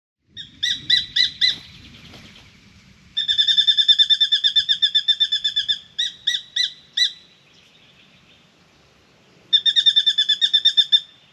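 Spangled drongo scolding a pied currawong with sharp, repeated metallic notes. It gives four single notes, then a fast run of about two and a half seconds, four more notes, and another fast run near the end.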